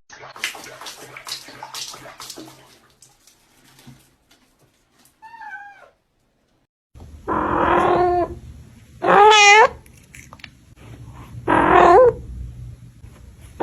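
A cat meowing loudly three times, long drawn-out meows about two seconds apart, after a stretch of soft clicking and rustling and one faint short meow.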